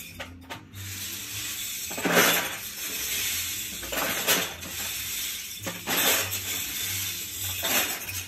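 Plastic crinkling and rustling as a cat paws at it, a steady hiss with four louder surges about two seconds apart.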